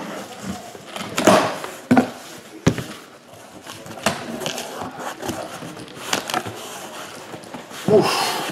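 A heavy case being cracked open and its boxes handled: a run of irregular knocks, thumps and scrapes.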